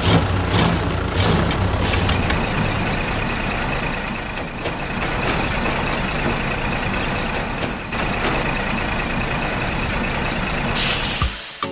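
A truck-like engine running steadily, with a steady high whine over it and a short loud hiss near the end.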